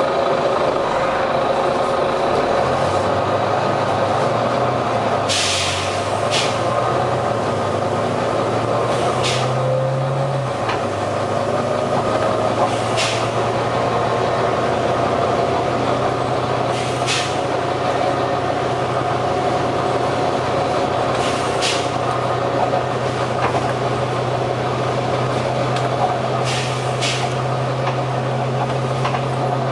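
Volvo B9TL bus's six-cylinder diesel engine running steadily, with about eight short, sharp hisses at irregular intervals of a few seconds. The uploader takes the hissing for a dodgy turbo.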